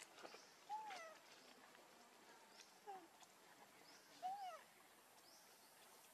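Young macaques giving three short coo calls, each rising then falling in pitch, about one, three and four seconds in. Faint high chirps sound between them.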